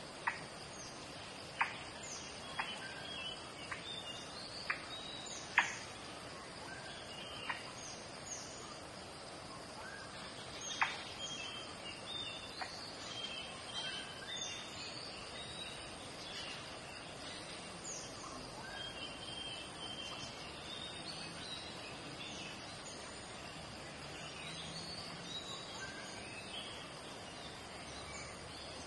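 A wild Asian elephant breaking up pieces of palm stem as it feeds: a string of sharp cracks and snaps, about ten over the first dozen seconds, then they stop. Birds chirp and call throughout.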